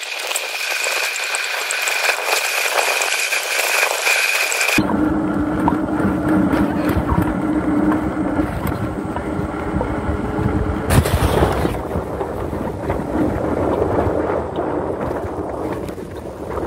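Wind rushing over the microphone together with the hum of the Gotway Nikola Plus electric unicycle's hub motor as it is ridden. A steady high whine runs through the first five seconds, and the sound changes abruptly twice, about five and eleven seconds in.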